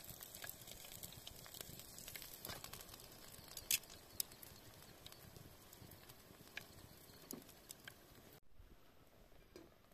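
Wood campfire crackling: scattered sharp pops and ticks over a soft, steady hiss. The hiss drops away abruptly near the end.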